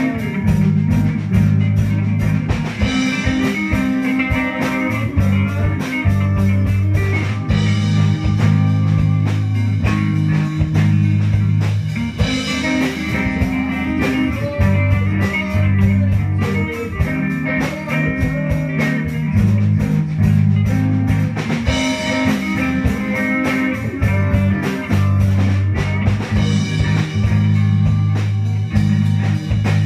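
Live band playing a slow, relaxed rock song on electric guitars, with a bass guitar carrying long low notes over steady drum hits.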